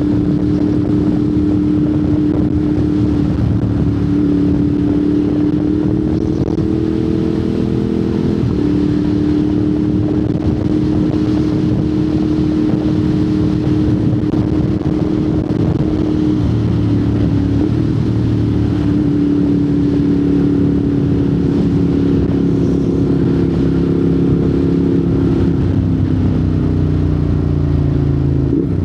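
Ducati Monster 821's 821 cc L-twin engine through a Termignoni exhaust, running steadily under way. Its note shifts up and down in small steps a few times and drops near the end.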